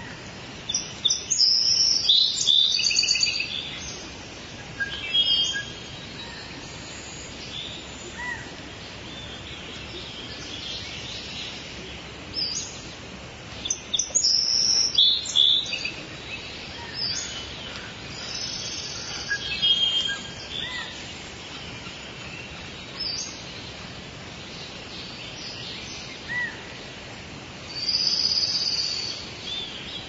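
Small songbirds chirping and calling in scattered high-pitched bursts over a steady outdoor background hiss. The busiest flurries come just after the start, around the middle and near the end.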